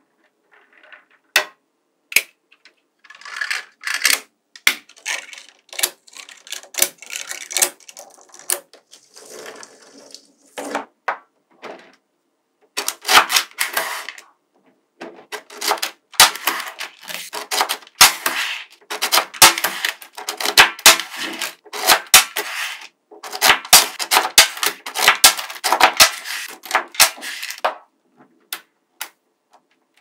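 Small magnetic balls clicking and clattering as they snap together and are pressed into a flat block between white plastic boards. The sharp clicks come in dense, rapid runs with brief pauses between them.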